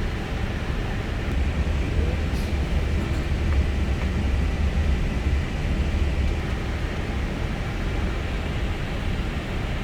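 Steady low rumble and airflow hiss inside an Airbus A320 flight deck, the rumble swelling between about two and six seconds in.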